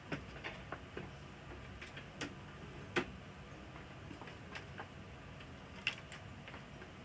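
Scattered light clicks and taps at an irregular pace, with a sharper one about three seconds in and another near six seconds.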